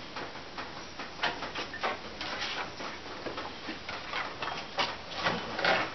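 Irregular light clicks and taps, a few each second, with a louder cluster near the end.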